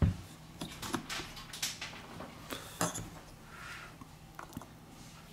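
Scattered light clicks and taps of small tools and smartphone parts being handled on a work surface, the sharpest right at the start.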